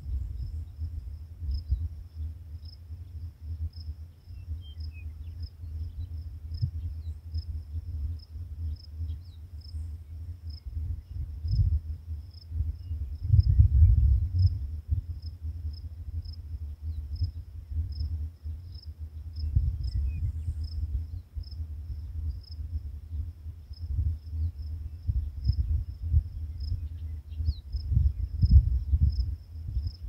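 A cricket chirping at a slow, even rhythm on one high pitch, over uneven gusts of wind rumbling on the microphone that swell loudest about halfway through. A faint steady hum sits underneath.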